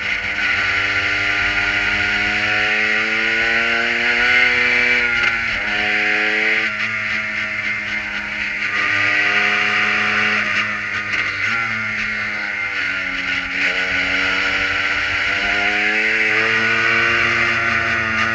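Kohler engine of a Prototype 1 race car heard from the cockpit, its pitch rising under acceleration and dropping sharply several times as the driver lifts and shifts. A steady hiss of wind and road noise runs underneath.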